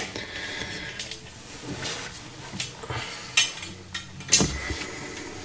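A few light metallic clicks and taps as a brass compression isolating valve is handled and offered up onto copper pipe, the sharpest about three and a half and four and a half seconds in.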